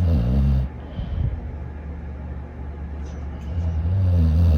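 Dog snoring: a loud, low-pitched snore at the start, a softer low breath through the middle, and another loud snore building near the end.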